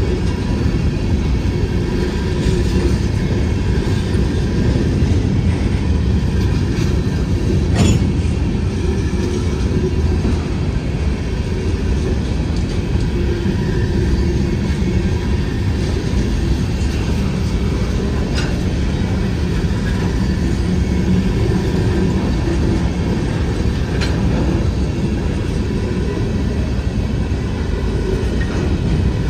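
Freight train's covered hopper cars rolling past, a steady rumble and clatter of steel wheels on rail. A sharp knock stands out about eight seconds in, with a few fainter clicks later.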